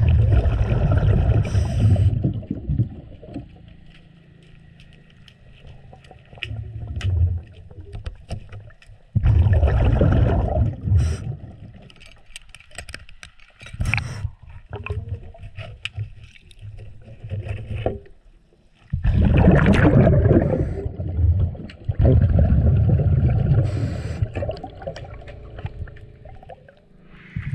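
A diver breathing underwater: loud bursts of exhaled bubbles roughly every nine to ten seconds, with scattered sharp clicks between breaths.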